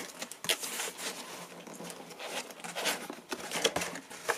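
Cardboard box being opened by hand: the lid and flaps sliding and scraping against the box, with a few light knocks.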